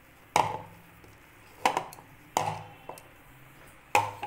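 A bowl knocking against the table at uneven intervals as a chocolate-biscuit dough is kneaded in it by hand: four sharp knocks and a smaller one between them.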